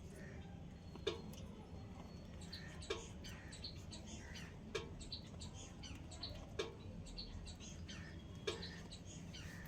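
Lovebirds chirping softly in short, high twitters. A sharp click recurs about every two seconds, five times in all.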